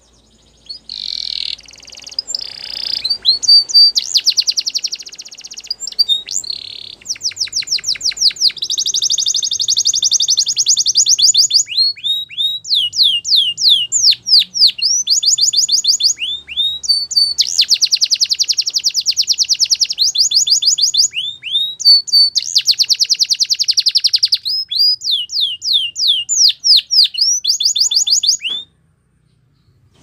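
Domestic canary singing: a long, high song of fast trills made of rapidly repeated notes, in phrases that change every second or two. The song stops abruptly shortly before the end.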